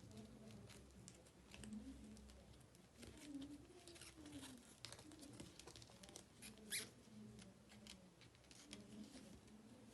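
Faint, scattered light taps, ticks and rustles of small items being handled, with one sharper click about two-thirds of the way through.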